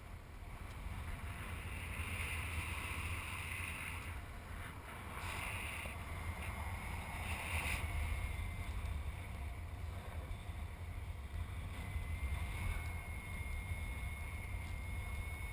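Airflow over the camera microphone of a paraglider in flight: steady wind noise with a deep rumble and a hiss.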